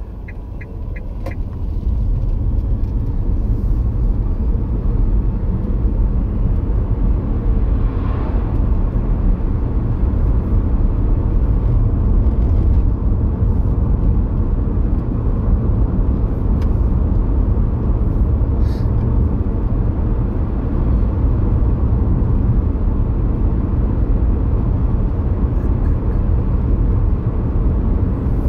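Steady road and engine noise heard from inside a moving car. It builds over the first couple of seconds as the car pulls away, then holds at a constant level.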